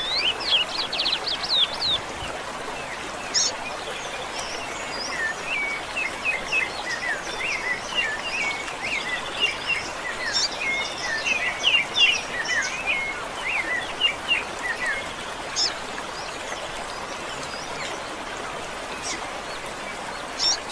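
Songbirds singing over a steady hiss of running water or background noise. A fast series of sweeping notes runs for the first couple of seconds. A long run of quick twittering chirps follows from about five to fifteen seconds in, then only a few scattered short calls.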